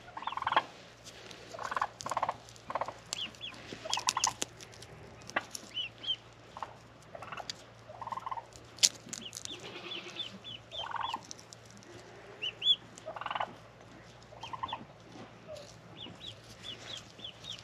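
Turkeys gobbling in repeated rattling bursts, mixed with many thin, high peeps from newly hatched chicks and a few sharp clicks.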